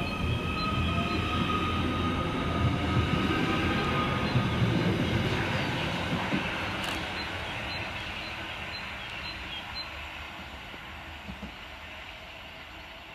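Merseyrail Class 777 electric multiple unit pulling out of the station: its traction motors whine, rising in pitch as it gathers speed, over wheel and rail rumble that swells and then fades steadily as the train draws away.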